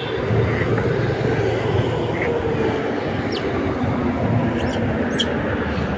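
A steady low rumble with a faint hum in it, and a few brief faint high chirps in the second half.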